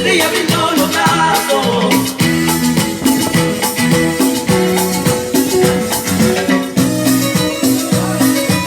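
Latin dance music with shakers and a bass line played loud through JBL SRX815P and EON615 PA speakers running full range without subwoofers, heard live in the room.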